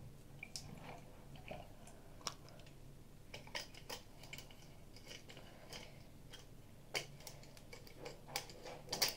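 Faint scattered clicks and taps from a clear plastic water bottle for a pet being handled, the tap now off.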